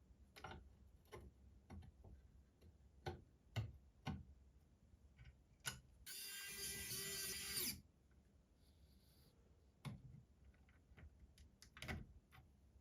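Sharp clicks and knocks of small PC hardware being handled and fitted, about a dozen spread through. About six seconds in, a steady hissing whirr lasts just under two seconds.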